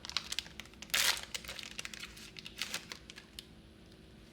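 Plastic-foil booster pack wrapper crinkling as a trading card pack is handled and opened, in several short bursts, the loudest about a second in.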